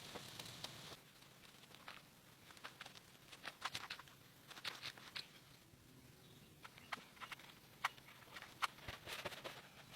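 Irregular light clicks and taps, a few a second, with a faint steady high hiss that stops about a second in.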